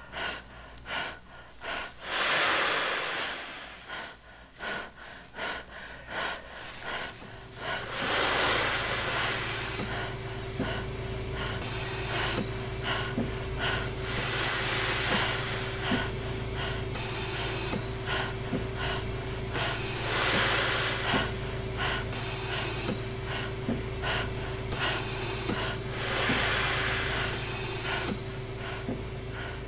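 A man breathing deeply, one long breath about every six seconds, as he blows air into a large plastic bag by mouth. A steady low hum comes in about seven seconds in, with faint regular clicks underneath.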